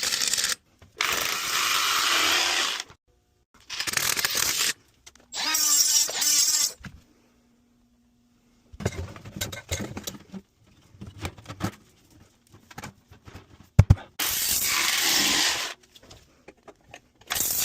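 Power drill driving screws in several short runs, one with the motor speed wavering, with scattered clicks and knocks of metal brackets and pipe being handled between runs and one sharp knock near the middle.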